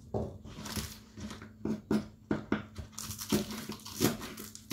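Kitchen knife chopping spring onions on a wooden cutting board: a string of irregular knocks of the blade striking the board.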